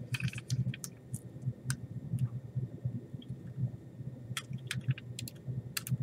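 Irregular small plastic clicks and handling noise as the plastic holder is worked off a 7 mm laptop hard drive, its tabs popping out of the drive's screw holes.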